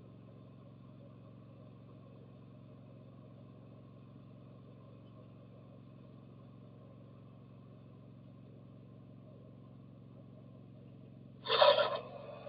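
Faint steady hum, then about eleven and a half seconds in a sudden loud knock and rustle of about half a second as the camera is picked up and handled, with softer handling noise after it.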